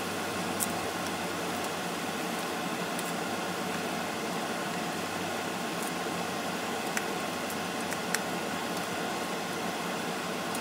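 Mantis shrimp and garlic sizzling steadily in butter in a frying pan, with a few sharp clicks of metal tongs against the pan as the shrimp are turned.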